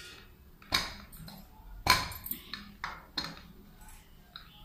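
Metal clinks and knocks as an aluminium pressure cooker and small steel cups are handled and shifted on a stone counter: two louder knocks about one and two seconds in, then several lighter clicks.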